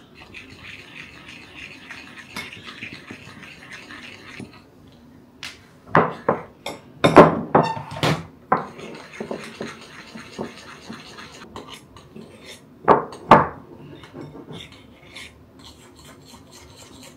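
A spoon scraping and clinking against a bowl and other dishes, with a cluster of sharp knocks in the middle and two more near the end.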